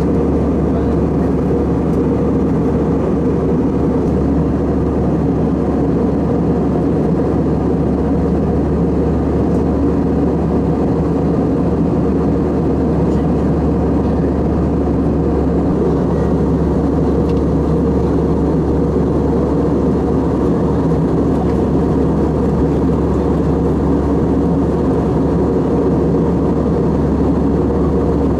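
Steady cabin drone of an Airbus A320 airliner in flight, heard from a window seat inside the cabin: a constant low rushing hum of engines and airflow that does not change.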